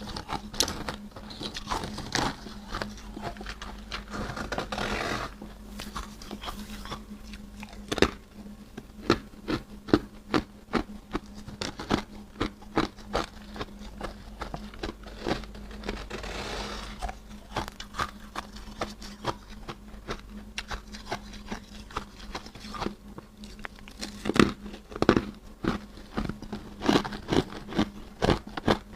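Freezer frost being bitten and chewed close to the microphone: a dense run of crisp crunches, several a second, with a few louder bites scattered through. A faint steady low hum sits underneath.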